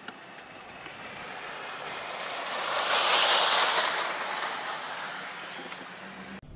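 Rushing water of a runoff waterfall pouring down a roadside rock face, a steady hiss that swells to its loudest about three seconds in as the car passes close by, then fades. It cuts off suddenly near the end.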